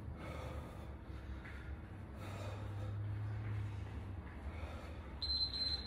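A man breathing hard between warm-up exercises, with soft puffs of breath through the nose and mouth. A steady high tone starts near the end.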